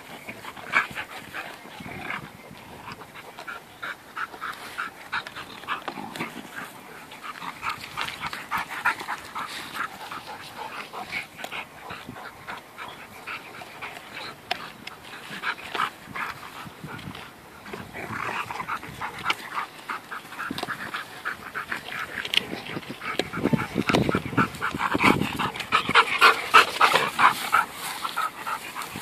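Two Labrador-type dogs playing tug-of-war over a stick, making dog play noises, with quick short pulses of sound throughout that grow louder near the end.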